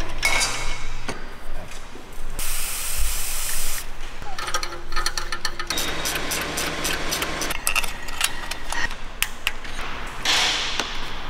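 Hand tools on the turbochargers of a twin-turbo V8: a ratcheting wrench clicking and metal fittings clinking. A hissing burst of about a second and a half comes a few seconds in, and another short hiss comes near the end.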